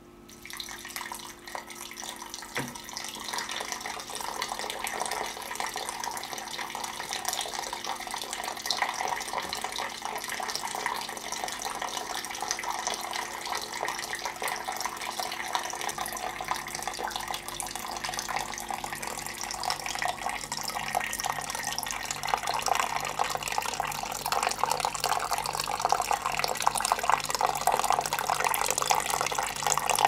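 A thin stream of water falling from a bamboo spout and splashing into a small pool inside a hollowed log basin, starting right at the beginning and growing slowly louder. A faint low hum joins about halfway through.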